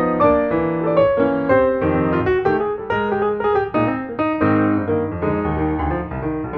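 Background piano music, with chords and melody notes changing in quick succession.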